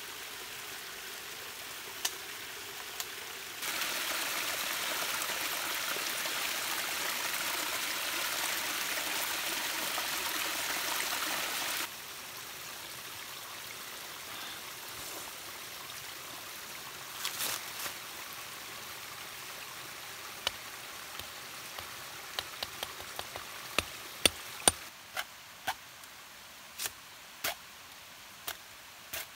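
Water falling and splashing down a small forest waterfall, loud and steady for several seconds before cutting off abruptly, then a quieter stream. Near the end, a run of sharp knocks as a machete chops at a bamboo stick.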